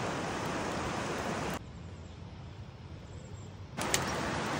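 River rapids rushing: a steady wash of water noise that drops much quieter about a second and a half in, then returns at full level near the end, with a brief click just after.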